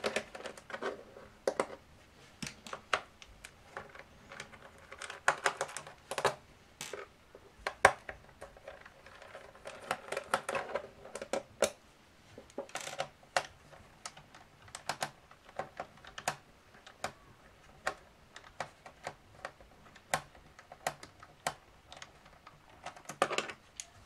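Irregular small clicks and taps from a precision screwdriver turning screws out of a laptop's plastic bottom case, along with handling of the case.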